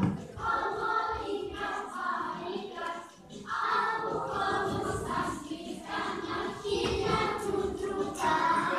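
A group of young children singing a song together in short phrases.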